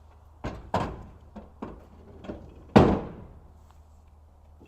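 A handful of knocks and clunks, then a door slamming shut about three seconds in, the loudest sound, with a short ringing decay.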